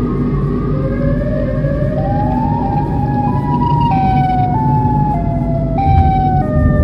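Siren-like wailing tones that glide upward, then step up and down in pitch every half second or so. They sound over the low rumble of a car driving on the road.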